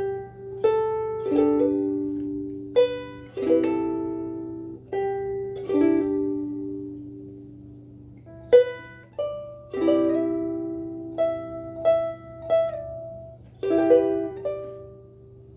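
Kala KA-CLM-S laminate mahogany soprano ukulele with a bone saddle, played: single notes and chords plucked one at a time and left to ring out and fade slowly, with a short pause midway and the playing stopping a little before the end.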